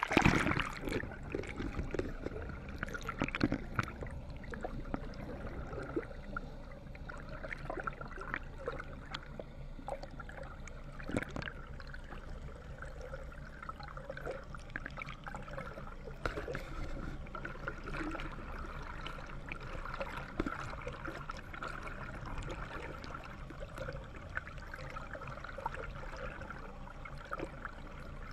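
Water heard by a camera just under the surface: a loud rush of splashing and bubbling as it goes under, then a steady underwater wash with scattered clicks and gurgles.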